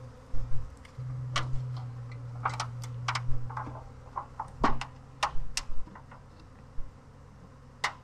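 Honey bee swarm buzzing, a low hum that is loudest in the first few seconds, with a string of sharp taps and clicks as the bees are swept down into a wooden swarm box.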